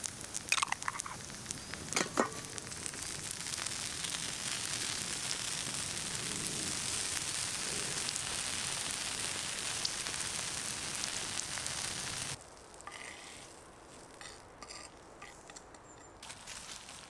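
Food sizzling and crackling over a campfire: a steady hiss with scattered pops and a couple of sharper cracks. About twelve seconds in it cuts off abruptly, leaving a quieter stretch of faint clicks and crackles.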